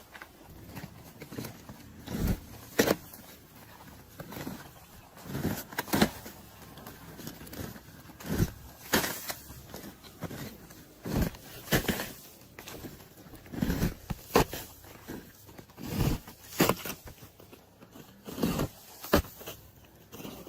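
Nails being driven into asphalt roof shingles: sharp knocks every second or two, often in pairs about half a second apart.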